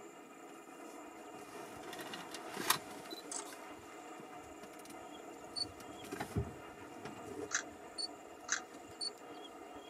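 A steady faint hum with scattered sharp clicks of camera shutters, one louder click about three seconds in and a string of clicks in the second half, plus a single dull thump about two-thirds of the way through.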